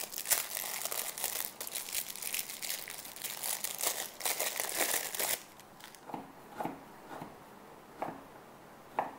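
Red cellophane wrapper crinkling as it is peeled off a Gloria candy for about five seconds, then a chef's knife slicing the soft caramel-pecan candy and knocking on a wooden cutting board, a few separate taps about a second apart.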